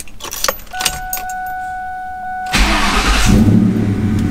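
Keys jangle in the ignition and a steady high tone sounds with the key on. About two and a half seconds in, the 2001 Ford Mustang GT's 4.6-litre V8 cranks briefly, catches, and settles into a steady idle. This is its first start after a clutch and flywheel replacement.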